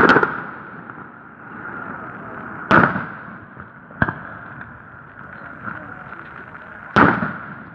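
Aerial firework shells bursting: loud booms at the start, just under 3 seconds in and about 7 seconds in, each trailing off in an echoing rumble, with a sharper single crack about 4 seconds in.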